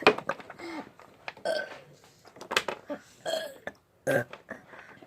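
A child burping: a string of about six short burps spread over a few seconds, some sliding down in pitch.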